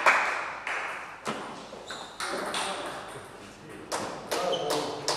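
Table tennis ball clicking sharply off bats and table, a few single strikes at first and then a quicker run of hits near the end. A burst of crowd noise fades out at the very start.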